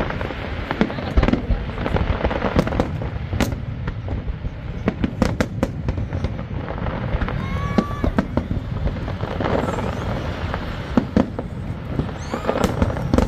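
Fireworks display: aerial shells bursting one after another, many sharp bangs and crackles over a continuous low rumble of booms.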